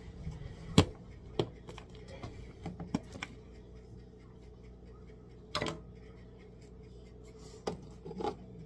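A few scattered sharp knocks and scrapes of hands handling things close to the microphone, the loudest about a second in, over a steady low hum.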